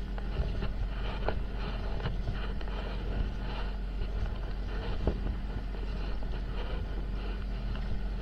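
A set-net fishing boat's engine running with a steady low hum, with a few small knocks and rustling as the mesh of the holding net is gathered in by hand over the side.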